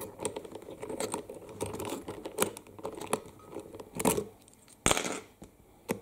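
Homemade push-button combination lock on a safe built from aluminium drink cans, its buttons pressed by hand one after another in a run of small clicks and knocks. Louder knocks come about four and five seconds in.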